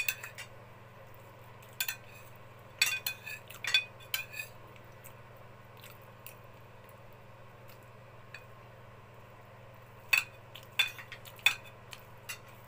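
Cutlery clinking and scraping against a plate while someone eats. There are a few sharp clinks near the start and a cluster three to four seconds in, then a quiet stretch, then more clinks over the last few seconds.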